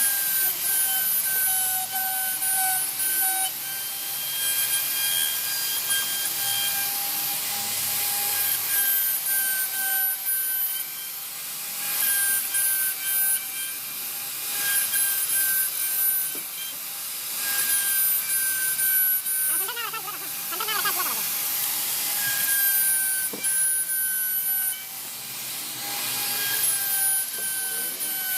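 CNC router spindle whining at a steady pitch while its bit cuts wood. The cutting noise swells and eases every few seconds as the tool moves through the work.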